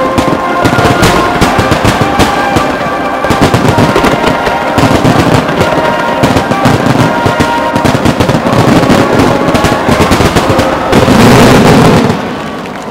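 A rapid barrage of fireworks bursts banging and crackling over music from loudspeakers, loudest about eleven seconds in, then dropping off suddenly near the end.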